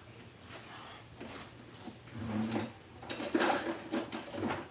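Kitchen handling sounds: quiet rustling at first, then a run of small clicks and knocks in the second half as items are moved about on the counter.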